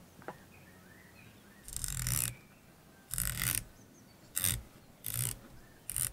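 Rifle scope's windage turret turned by hand in about five short runs of clicks, the runs getting shorter toward the end, shifting the point of impact left because shots are landing too far right.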